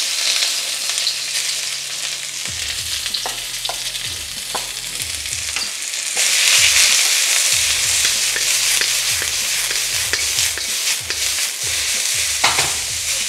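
Vegetables sizzling in a hot wok as they are stir-fried, with sharp clicks of stirring against the pan. The sizzle grows louder about six seconds in.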